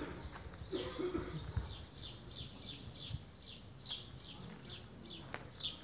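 A small bird chirping over and over in an even series, about three short, high chirps a second.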